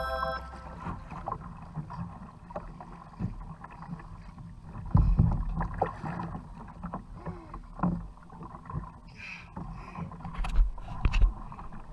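On-board sounds of a fishing kayak at sea: water and wind noise with scattered knocks from the rod, reel and hull. About five seconds in there is a sudden loud thump as the line snaps and the hooked yellowtail is lost, followed by a few more bumps near the end.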